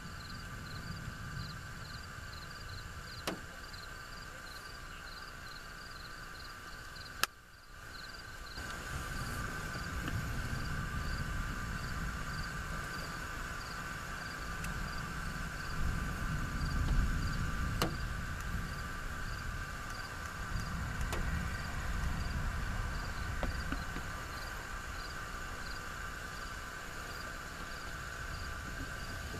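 Insects chirping steadily, a high pulse about twice a second over a constant high drone, with a low rumble underneath. The rumble grows louder after a brief dropout about seven seconds in, and a few sharp clicks stand out.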